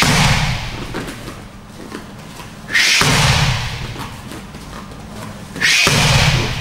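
Three right hooks in boxing gloves smacking into a Thai kick pad, about three seconds apart. Each strike comes with a sharp hissing exhale just before the slap of glove on pad.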